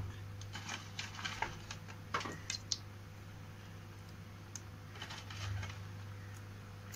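Light clicks and taps as whole green chillies are dropped into a pan of fish curry, several in quick succession in the first two to three seconds and a few scattered ones later, over a steady low electrical hum.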